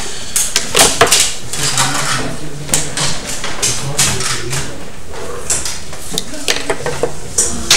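Plastic set squares and a straightedge being shifted and set down on a drawing board, a string of light knocks and clicks, with pencil strokes on paper between them.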